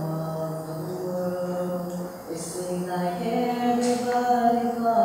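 A young male voice singing a nasheed in long held notes over a steady low drone.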